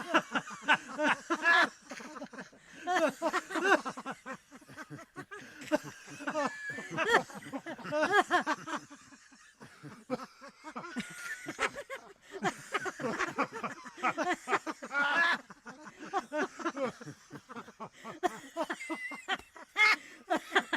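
Human laughter: repeated bouts of laughing in quick, pulsing ha-ha-ha syllables, with short breaks between bouts.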